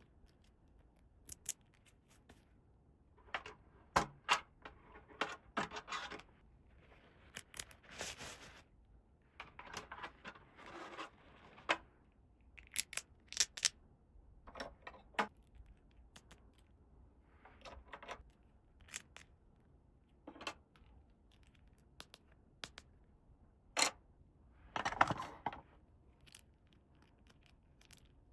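Hands unpacking and handling small plastic toy pieces: scattered sharp clicks and taps, with short rustles and scrapes of packaging in between.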